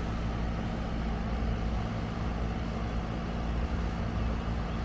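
A machine running steadily with a low hum made of several held low tones.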